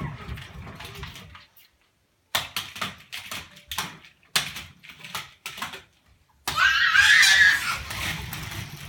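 A young child's quick footsteps knocking on a hardwood floor, then a loud, high-pitched child's vocal cry about six and a half seconds in.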